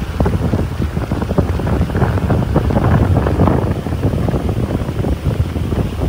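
Wind buffeting the microphone in heavy, uneven gusts over a rain-swollen stream rushing through shallow riffles.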